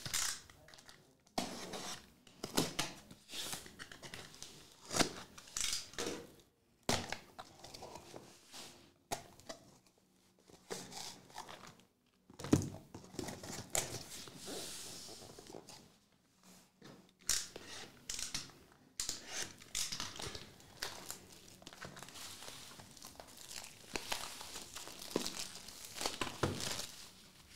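A cardboard shipping box and the trading-card box inside it being opened by hand: irregular bursts of tape and cardboard tearing and packaging crinkling, with one longer rip about halfway through.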